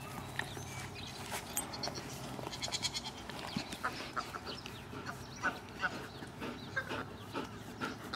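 Oregon Mini geese calling in short, scattered honks and cackles, some calls in quick runs.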